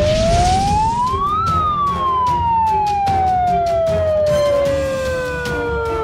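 Warning siren winding up in pitch for about a second and a half, then slowly winding down, sounded just before an acetylene detonation once the firing box is armed.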